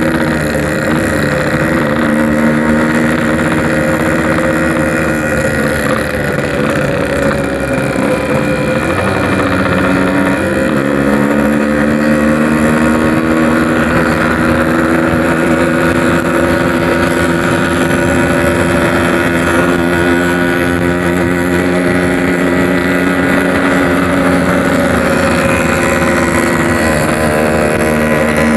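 Yamaha RX-King 135cc two-stroke motorcycle with a Packing Power exhaust, ridden at a steady cruise; the engine note dips about a third of the way in and then picks back up. Wind rushes across the microphone.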